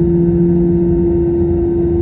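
Airbus A321neo's jet engines heard from inside the passenger cabin: a steady, loud hum with one held mid-pitched tone over a low rumble.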